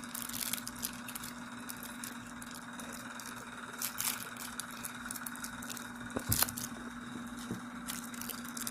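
Chewing-gum wrappers being torn open and crinkled by hand: scattered rustles and small crackles, with one louder snap about six seconds in.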